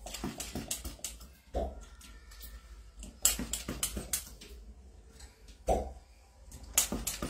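Hand-held hijama cupping pump working on plastic suction cups: a run of sharp clicks and short hissing strokes as suction is drawn, bunched about three to four seconds in and again near the end, with a couple of duller knocks between.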